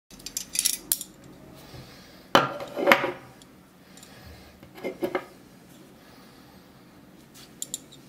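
Metal spring-gate carabiner set down and shifted on a wooden tabletop: a few light metallic clicks, then a louder clatter with some ringing about two and a half seconds in, and another smaller clatter around five seconds.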